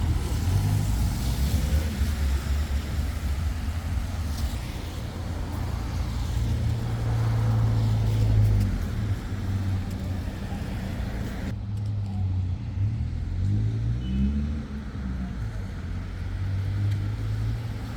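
Road traffic: the steady low rumble of cars driving by, with a higher hiss that cuts out abruptly about two-thirds of the way through.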